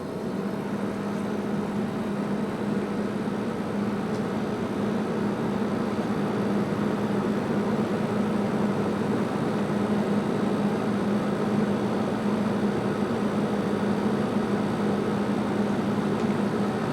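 Vintage 1987 GE refrigerator's compressor and condenser fan running just after startup: a steady hum with a rush of air from the back, settling in over the first second.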